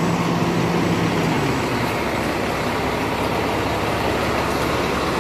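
Motor vehicle engine running close by: a steady hum that fades about a second and a half in, over steady street noise.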